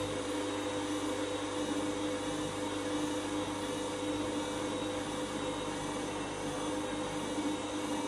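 Candy front-loading washing machine's drum turning laundry through sudsy rinse water, its motor giving a steady hum with a constant tone.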